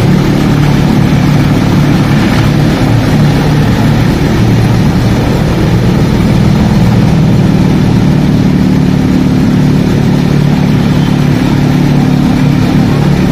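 Tractor-driven threshing machine running steadily, with a continuous low engine drone as crop bundles are fed in.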